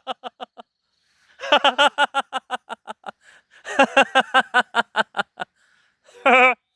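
A person laughing out loud in three long bouts of rapid 'ha-ha-ha' pulses, about five or six a second, each bout trailing off. A short burst of laughter comes near the end.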